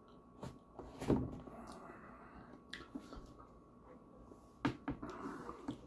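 Handling noise: a few knocks and clunks as a mug and a cardboard eggnog carton are picked up and set down on a table, the loudest about a second in and a pair more near the end.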